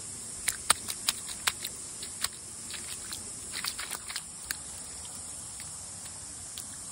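Bare feet stepping in wet mud: irregular small wet clicks and pops, several a second at first and sparser later, over a steady high hiss.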